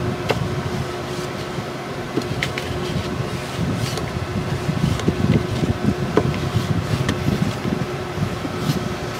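A permanent-ink pad rubbed and dabbed over the edges of a painted chipboard box: soft scuffing with a few light clicks, over a steady hum.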